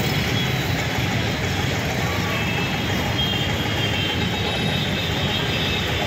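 Steady din of a busy street, with bus engines and traffic running and people talking in the crowd.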